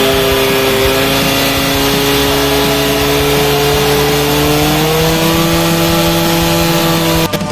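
Portable fire pump's engine running steadily at high revs, driving water through the hoses to the targets. Its pitch steps up slightly about five seconds in, and it cuts off abruptly near the end.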